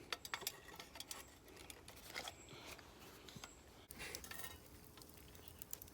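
Faint, scattered clinks and taps of a metal camping cup being hung on a pot hanger.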